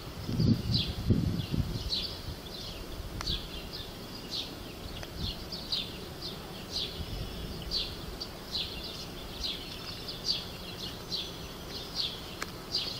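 A bird chirping over and over, about two short falling chirps a second, with a low rumble on the microphone during the first couple of seconds.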